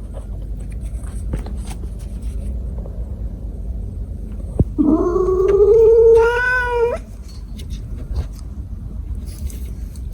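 A cat gives one long, drawn-out meow of about two and a half seconds that starts low, rises and is then held, over a steady low rumble.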